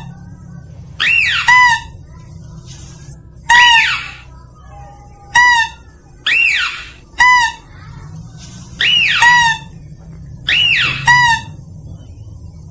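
Mouse-deer (kancil) lure call repeating about six times: each time a shrill cry sweeps up and back down, then breaks into a rapid stutter of short squeaky notes.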